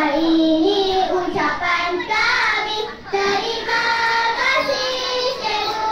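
A group of young schoolchildren singing a song together in unison, with notes held between shorter sung phrases.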